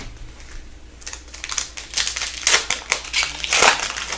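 Hockey card pack wrapper crinkling and crackling as it is handled and torn open, in irregular bursts that grow louder about halfway through.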